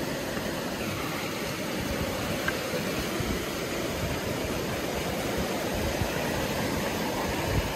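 Steady rush of flowing stream water, even and unbroken.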